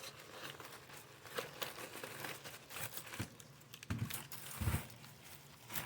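Packaging being handled and unwrapped: irregular crinkling and rustling, with a couple of soft knocks about four seconds in.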